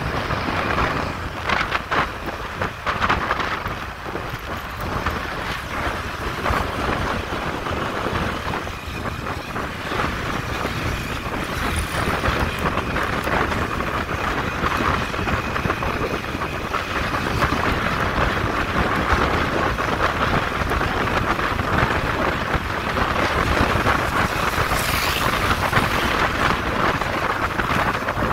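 Wind rushing over the microphone of a moving motorcycle, with road and engine noise under it, steady throughout.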